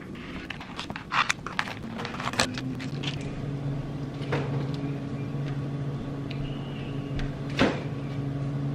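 Scissors snipping and vacuum-sealed plastic packs crackling, then the steady low hum of an open side-by-side refrigerator-freezer as frozen packs are stacked inside, with one sharp knock near the end.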